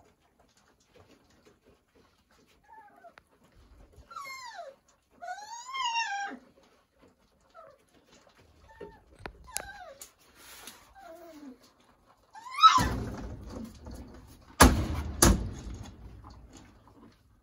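Month-old Doberman puppies whining and whimpering in high cries that slide down and up, strongest about five to six seconds in. Later a loud rustling clatter with two sharp knocks near the end.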